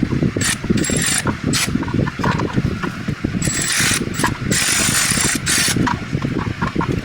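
Ratchet wrench being worked in several short bursts of rapid clicking, over a steady low rattling rumble.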